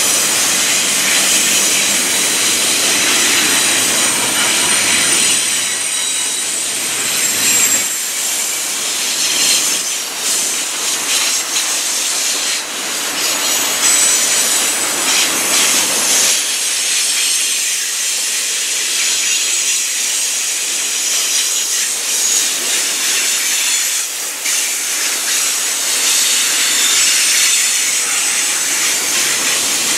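Double-stack intermodal freight train of container well cars rolling past, steel wheels running on the rails with a steady, wavering high-pitched squeal.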